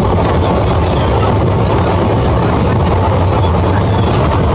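A train running along, heard from on board: a steady low rumble under a constant rushing noise.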